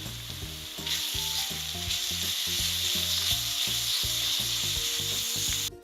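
Chopped onion with ginger and garlic paste frying in hot oil in a kadhai, a steady sizzle that grows louder about a second in and cuts off suddenly near the end. The masala is at the stage where it starts to release its oil.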